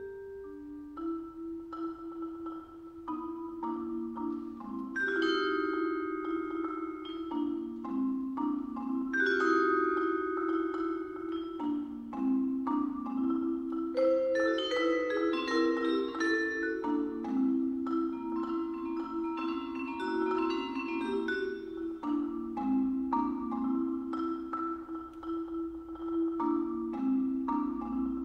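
Marimba and vibraphone duo playing with mallets: a dense, unbroken stream of struck notes, the wooden marimba bars and the metal vibraphone bars sounding together, some notes ringing on under the quick strokes.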